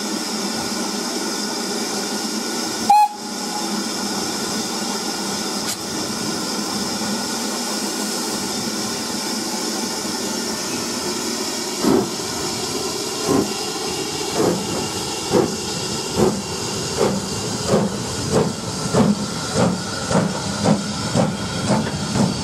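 BR Standard Class 4 2-6-4T steam tank locomotive hissing steam as it stands, with a short whistle blast about three seconds in. From about halfway through it starts away: its exhaust beats begin slowly and quicken steadily as it picks up speed.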